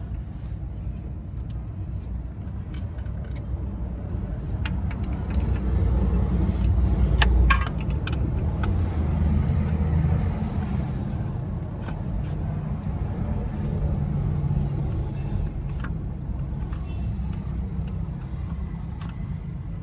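Toyota 3Y four-cylinder petrol engine running with its refitted distributor just set to the timing mark. It gets louder for a few seconds around the middle, then drops back sharply, with light clicks and ticks over the steady running.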